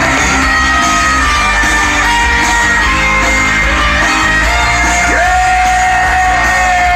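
Loud dance music played over a party sound system, with a steady heavy bass, singing, and shouts from the crowd.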